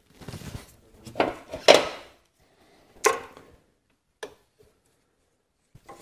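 Gloved hand scuffing and rubbing against hoses and metal while threading a new A/C pressure cutoff switch onto its line by hand. There are a few short scuffs, the loudest just before two seconds in, and a light click a little after four seconds.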